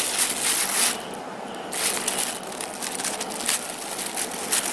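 Thin plastic clothing bag crinkling and rustling as hands handle it and pull its sealed flap open, with a short lull about a second in.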